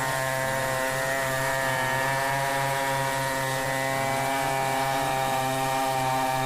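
Two-stroke chainsaw running steadily at speed while cutting wood, its engine note dipping slightly about a second and a half in.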